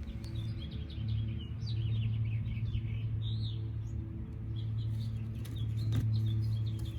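Small birds chirping repeatedly over a steady low hum, with a single sharp click about six seconds in.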